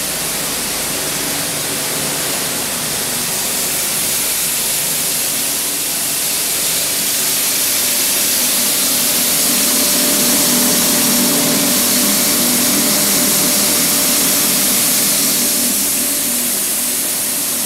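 Plastic film pelletizing line running: a steady loud hiss of machinery with a low hum underneath, swelling slightly about halfway through.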